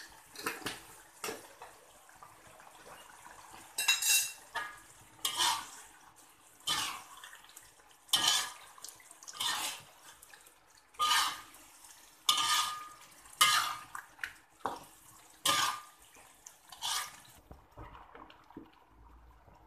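Metal slotted spatula scraping and clanking against a metal wok while stirring chicken in thick rendang gravy, one stroke about every second and a half, stopping a couple of seconds before the end.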